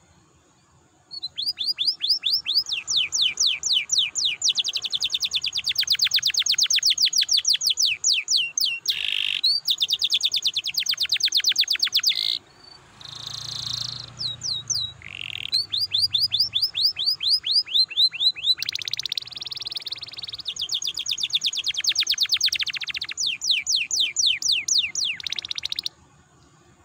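Domestic canary singing long, fast rolling trills of rapidly repeated high notes, in two long phrases with a short break about halfway through. It starts about a second in and stops about a second before the end.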